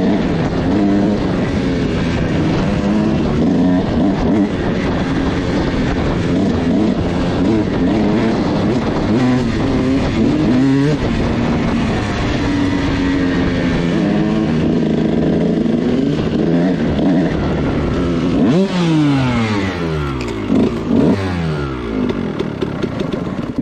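Kawasaki KX dirt bike engine running under a rider on a trail, its pitch rising and falling with the throttle. There are several quick sharp revs near the end. The engine is being run in on a freshly rebuilt piston.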